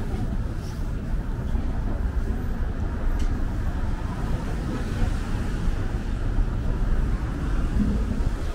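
Street traffic ambience: a steady low rumble of road traffic.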